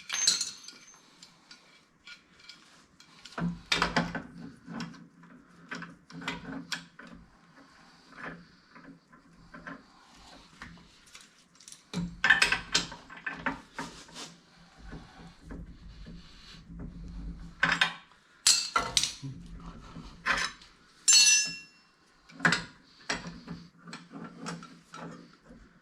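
Metal parts and hand tools clinking, knocking and rattling in irregular bursts during repair work, with a steady low hum underneath for much of the time.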